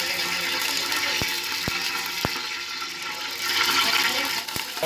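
Steady rush of running water, with a few light knocks.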